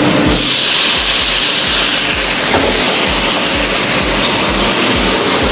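Huadiao rice wine splashed into a hot wok, sizzling with a loud, steady hiss that starts sharply just after the beginning. A rapid low pulsing runs underneath.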